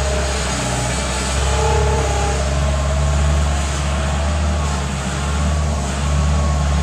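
Bobcat skid-steer loader's engine running steadily under load while the machine works a bucket of dirt. Its level rises and falls slightly as the throttle and load change.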